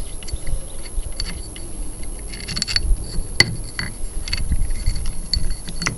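Small metal engine parts and tools clinking and scraping as they are handled during the dismantling of a small engine's magneto, with scattered sharp clicks. The sharpest click comes about three and a half seconds in.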